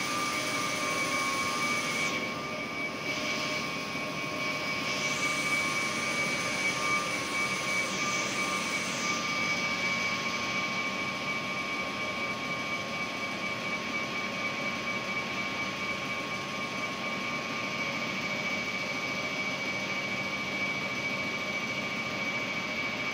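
Ammonia refrigeration compressor running steadily: a constant mechanical drone with a steady high whine over it.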